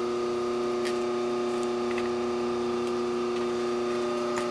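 A steady shop machine hum with several fixed tones, and a few faint short scrapes of a hand deburring tool's blade running along the burred edge of a bored metal block.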